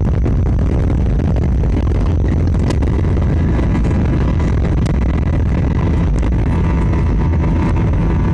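Airbus A320 jet engines at takeoff thrust, heard from inside the passenger cabin during the climb-out from the runway: a loud, steady, deep rumble. In the second half, several steady engine tones come through over the rumble.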